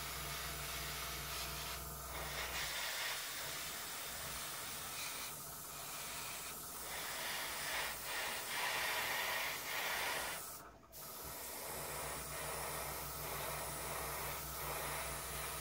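Airbrush hissing steadily as it sprays gray paint, the air cut off briefly a few times and fully once about eleven seconds in. Beneath it, an airbrush compressor hums low, stops about three seconds in and starts again about twelve seconds in.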